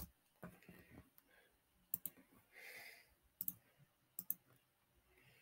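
Sharp, separate clicks of a computer mouse and keyboard at a desk, six or seven in all, a couple of them in quick pairs, with quiet gaps between.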